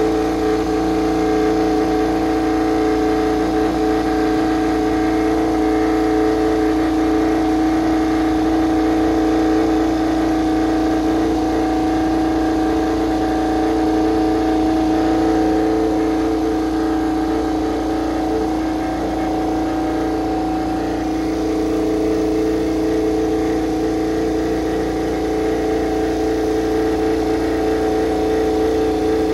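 GasGas-liveried KTM RC16 MotoGP bike's V4 racing engine running at a steady warm-up idle, holding an even pitch, with a slight dip in level about two-thirds of the way through.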